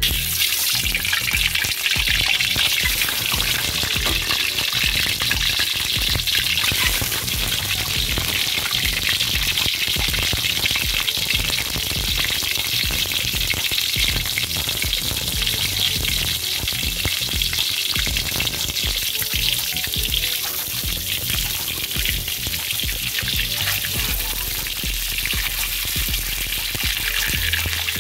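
Peeled hard-boiled eggs frying in hot oil in a steel wok, a steady, dense sizzle.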